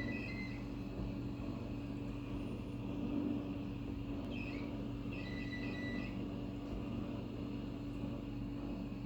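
Samsung dishwasher running with a steady low hum and drone, with brief high-pitched whines at the start and again about four to six seconds in. The owner calls the machine a lemon and its noises horrible.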